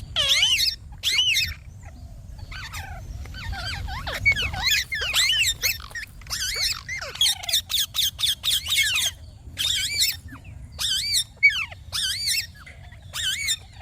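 Ringneck parrot (rose-ringed parakeet) calling: a rapid run of short, shrill, squawking calls with brief gaps, busiest around the middle, over a low rumble.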